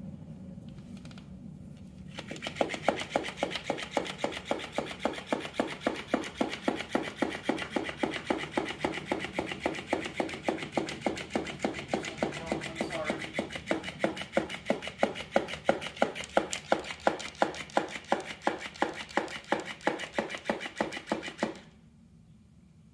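Electric flopping-fish cat toy flapping on a hardwood floor, its body slapping the boards in a rapid, even rhythm several times a second. It starts about two seconds in and cuts off suddenly near the end.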